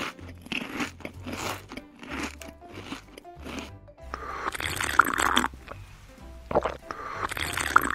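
Crunching, chewing sound effects of eating, a quick run of short crackles, then two long slurping sips about four and seven seconds in, over light background music.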